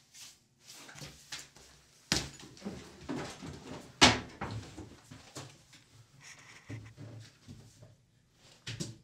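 Papers and a spiral notebook being shuffled and handled on a desk: rustling and scraping, with sharp knocks about two and four seconds in, the second the loudest.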